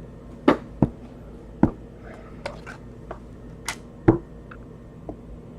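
Handling noises on a table: about seven light, irregularly spaced taps and clicks, the loudest about half a second in and about four seconds in.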